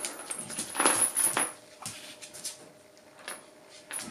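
A Shiba inu and a bull mastiff play-fighting over a chew ball: scuffling and clattering of bodies and toy in a series of short bursts, the loudest about a second in.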